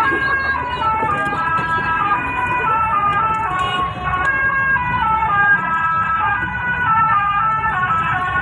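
Telolet horn sounding a continuous tune of stepped notes that change pitch a few times a second, over a low rumble from the vehicle.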